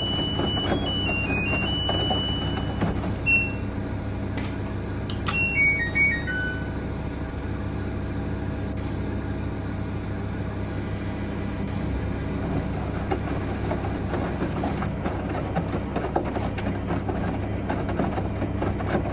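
The LG F109 runs with a steady low hum. Short electronic beep tones sound over it in the first second or so, a single beep comes at about three seconds, and a quick descending run of beeps follows around five to six seconds in.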